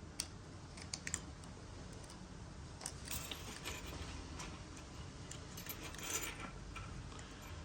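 Plastic casing and battery cover of a Porsche remote key being handled and fitted back together: a few small sharp clicks near the start, then light scraping and rattling of the parts.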